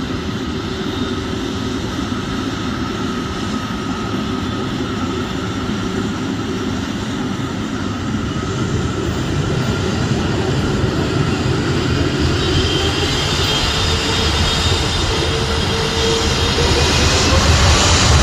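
Boeing 777 airliner's jet engines running at power as the airliner rolls along the runway. The noise grows steadily louder, with a faint rising whine in the last few seconds.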